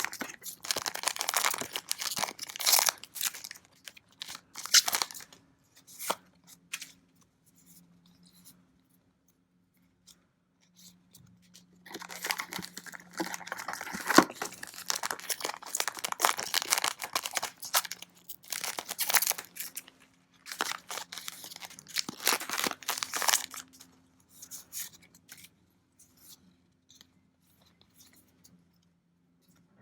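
Foil booster pack wrappers being torn open and crinkled by hand, in two spells: one for the first few seconds and a longer one from about twelve seconds in, with quiet stretches between.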